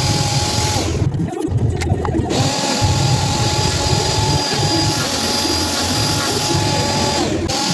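Woodworking power tool running with a steady motor whine over a rough, rumbling noise. The sound changes abruptly about a second in and again near the end.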